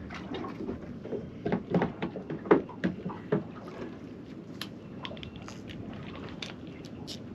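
Irregular knocks and clicks of gear being handled aboard a small fishing boat, busiest in the first few seconds and sparser after, over a steady wash of water and wind.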